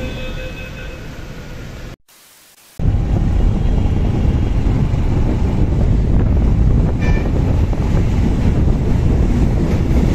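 Steady running noise inside a metro train car with a few steady high tones. It cuts abruptly to a short near-silence, then to loud wind buffeting the microphone of a moving two-wheeler, which drowns out nearly everything else.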